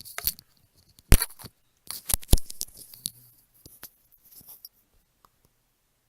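Handling noise close to the microphone as it is set down and settled: a run of sharp knocks and clicks with scraping and rustling, dying away after about four and a half seconds.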